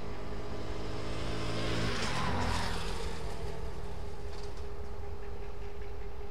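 A road vehicle passes close by about two seconds in; its noise swells and then falls away with a drop in pitch. A steady low engine hum runs underneath.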